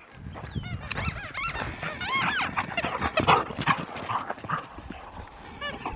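An animal close by giving short, high, squeaky calls that rise and fall in pitch, in quick runs of several, with the clearest run about two seconds in. Rustling and knocking sound underneath.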